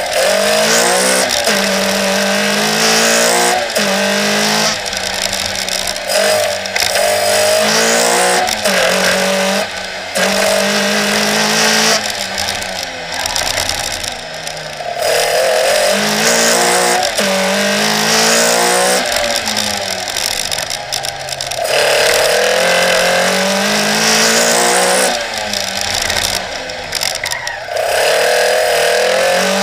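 Toyota Starlet KP's 2.0-litre 3S-GE BEAMS four-cylinder engine on individual throttle bodies, driven hard on a sprint stage: it revs up and falls back again many times, pitch climbing through each gear and dropping at each shift or lift for a corner.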